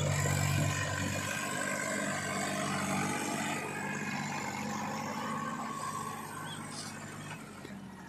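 Mahindra 265 DI tractor's three-cylinder diesel engine running steadily, getting quieter over the last couple of seconds.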